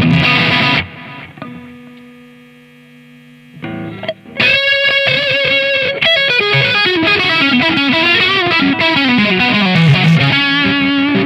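Telecaster electric guitar fitted with a Lollar pickup, played: a loud chord at the start rings out and fades over about three seconds. A fast run of single-note lead lines with bends follows and ends on a held note.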